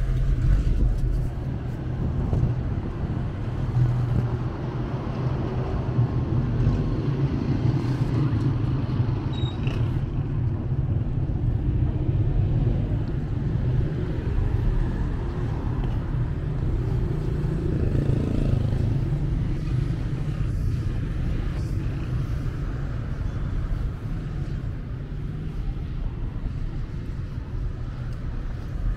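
City street ambience: a steady low rumble of road traffic, with faint voices of passers-by.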